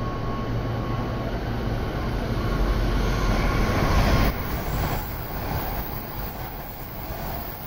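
An E7 series Shinkansen passing at high speed with a dense rushing noise. The noise builds to a peak about four seconds in, drops abruptly, then goes on as a lower, steady rush while the long train runs by.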